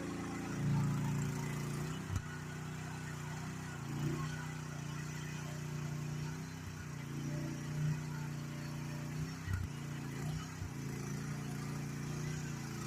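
GroundHog KH14G mini excavator's engine running steadily, with a few brief knocks about two seconds in and again near the end.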